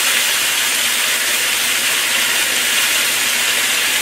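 Vegetables and sweet-and-sour sauce sizzling steadily in a hot wok over medium-high heat, an even hiss.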